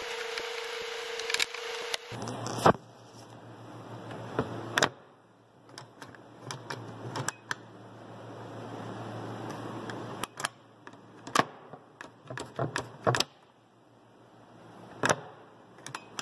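A screw being turned with a hand screwdriver at first. After a couple of seconds come a series of sharp, irregular clicks and light knocks from a cabinet's round push-button latches being pressed and the door being worked, over a low steady hum.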